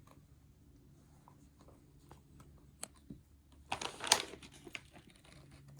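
A puppy chewing on a treat: scattered small clicks of teeth, with a louder crackling burst about four seconds in.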